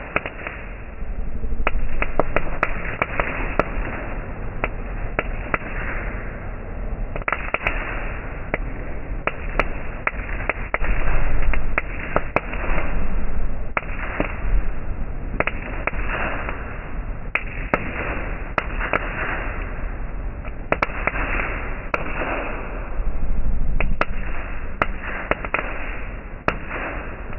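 Ground firework fountain spraying sparks: a continuous hiss shot through with many sharp crackling pops, which swells louder several times, over a steady low rumble.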